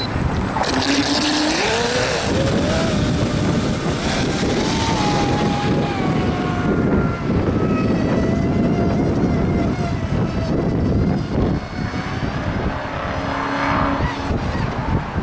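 RC Triton speedboat's motor whining as it runs at speed, rising in pitch over the first few seconds as it accelerates away, then slowly falling and fading, over a steady hiss.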